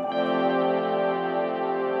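Background music: sustained ambient synthesizer chords, with a change of chord just after the start.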